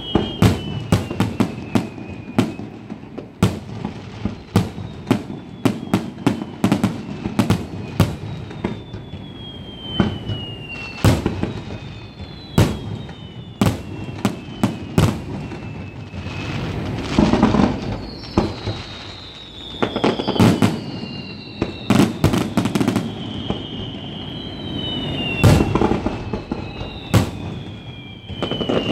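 Aerial fireworks display: a rapid run of sharp bangs and crackling bursts, with repeated whistles that fall in pitch as shells go up. Heavier, longer booms come about 17 and 25 seconds in.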